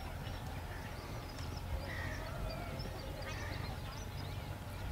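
Crows cawing a few short times over a steady low outdoor rumble.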